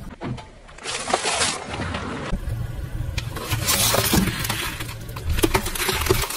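Objects cracking and crunching as a car tyre crushes them, a dense run of sharp snaps over the low running of the car's engine.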